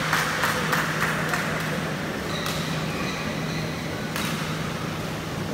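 Rhythmic clapping, about three to four claps a second, dying away about a second and a half in, over a steady low hum.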